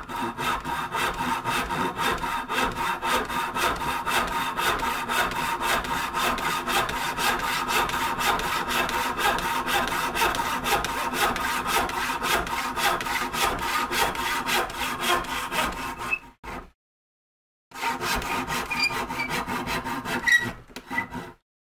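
Hand back saw cutting into a piece of timber held upright in a bench vise, in quick, steady push-and-pull strokes. The sawing breaks off for about a second around two-thirds of the way through, then resumes for a few more seconds and stops just before the end.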